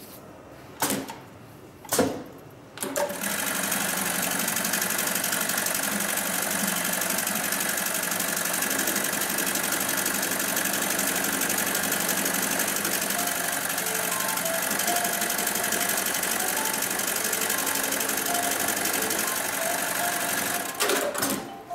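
HighTex BAS-326G direct-drive programmable pattern sewer, a cylinder-bed electronic bar tacker, stitching a pattern into safety-belt webbing. Two sharp clacks come first; the machine then runs at a steady high stitching speed for about eighteen seconds and stops with a short clatter near the end.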